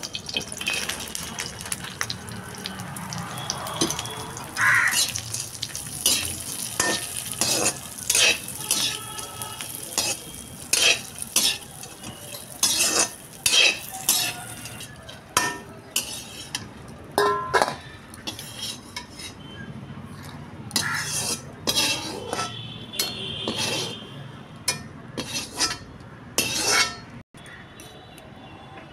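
A perforated metal spatula stirring raisins in a metal kadhai as they roast, scraping and clinking against the pan over and over at an irregular pace.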